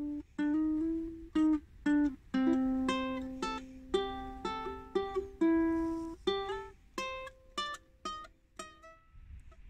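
Ukulele playing a tune of plucked single notes and chords, each note fading out after it is struck; the playing stops near the end.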